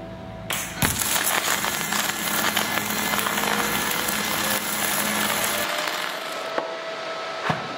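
Gas-shielded flux-core (dual-shield) welding arc crackling steadily for about five seconds as it burns through grease and paint on the steel, then cutting off suddenly. A steady hum continues after, with one sharp click near the end.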